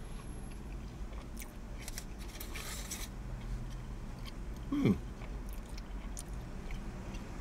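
A person chewing a mouthful of chicken burrito, with small wet clicks from the mouth. A little past halfway there is a short hum that falls in pitch, the loudest sound.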